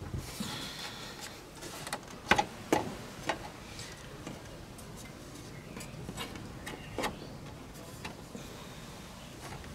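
Irregular small clicks and taps from hard parts of a computer case being handled and taken apart, the sharpest two about two and a half seconds in.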